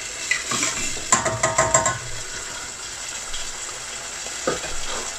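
Chicken pieces in a spiced onion sauce sizzling in a pot on the heat. From about one to two seconds in, a utensil stirs and scrapes against the pan.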